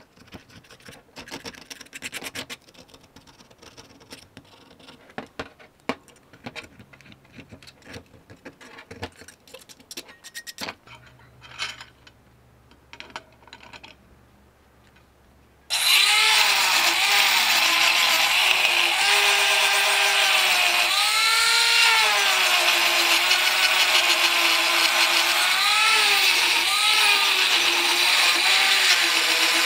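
Light scraping and scattered clicks of paint being scraped off a steel cleaver blade. About halfway through, an angle grinder starts suddenly and runs loudly on the steel blade, its whine dipping and recovering again and again as the disc is pressed on.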